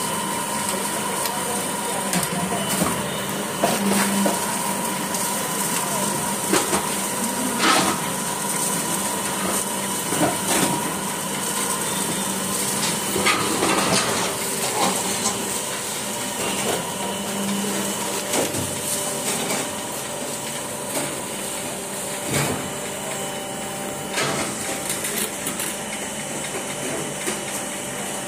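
Interlocking brick-making machine running, with a steady motor hum and irregular metallic clanks and knocks every few seconds.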